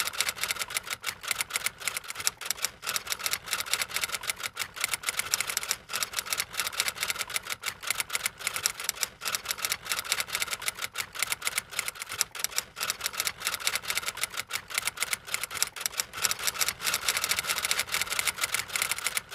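Typing sound effect: a rapid, unbroken run of keystroke clicks, many a second.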